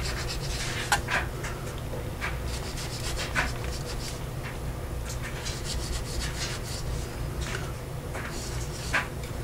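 Ceramic knife sawing through the loose strands of Amsteel Blue Dyneema rope on a wooden cutting board: a scatter of short scraping cuts. The blade is getting a little dull.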